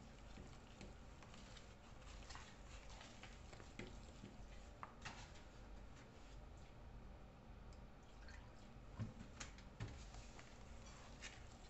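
Faint, wet squishing of banana bread batter being mixed by hand in a bowl, with scattered light clicks and a couple of louder knocks about nine and ten seconds in.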